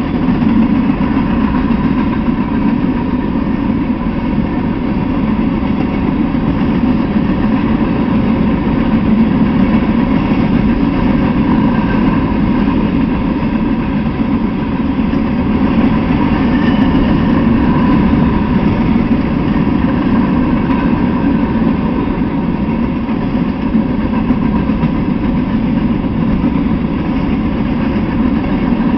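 Freight train of open-top hopper cars rolling past: a loud, steady rumble of steel wheels on the rails with a faint steady ringing tone above it.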